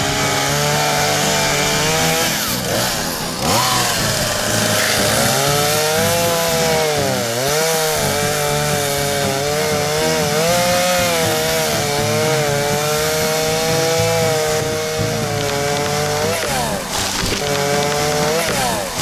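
Chainsaw running at high revs, cutting overhead through a dead tree limb; its pitch dips and recovers several times as the chain bogs down in the wood.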